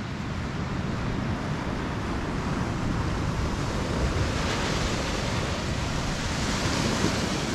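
Ocean surf washing against the rocky shore, a steady rushing that swells a little about halfway through, with wind buffeting the microphone.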